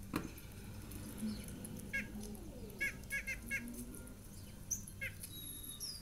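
Recorded birdsong played through a laptop's speakers: short chirps, a quick run of three about three seconds in, and a thin high whistle falling near the end. A sharp knock comes right at the start.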